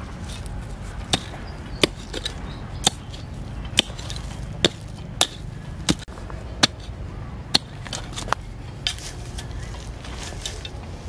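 A small hand pick chopping into soil: sharp strikes at about one a second, around eleven in all, stopping shortly before the end. A steady low rumble sits underneath.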